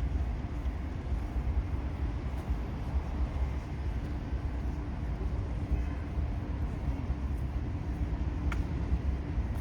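Steady low rumble of distant city road traffic, with a faint steady hum and a single faint click near the end.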